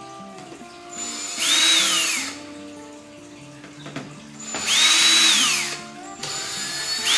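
Cordless drill backing out screws from a range hood's vent collar, in three short runs: each time the motor whine climbs to a steady high pitch and then falls away as the trigger is released. The third run starts near the end.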